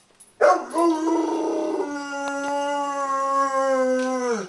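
Bernese mountain dog giving one long howl, starting about half a second in, holding a steady pitch and then sliding down as it dies away.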